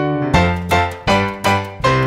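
Piano playing a held chord, then a run of chords struck about three times a second.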